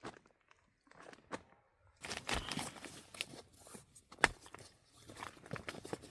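Irregular rustling and crinkling of fabric with a few sharp clicks, starting about two seconds in after near quiet: someone moving about and settling into camping bedding.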